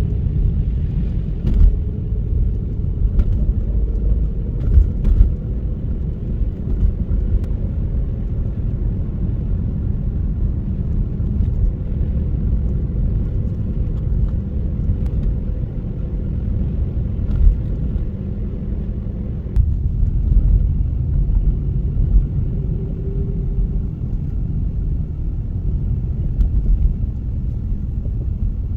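Car driving on a snow-covered road: a steady low rumble of engine and tyres, with a few faint clicks.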